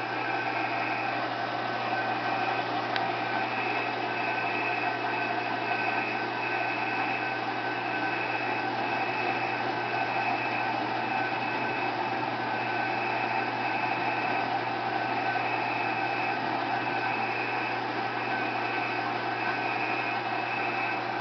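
Milling machine running steadily, its large-diameter end mill taking a plunge cut into a metal drill-press bracket to widen a bolt hole.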